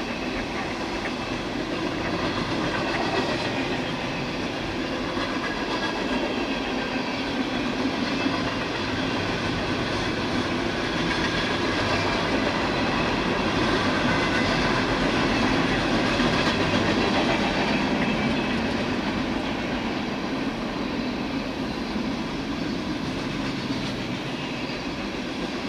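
Freight cars of a long CSX freight train rolling past, with the steady noise of steel wheels on the rails. It grows a little louder in the middle.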